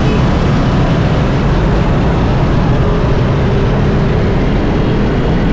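Steady outdoor street ambience recorded from a moving bicycle: a continuous low rumble with an even hiss over it, with no distinct events.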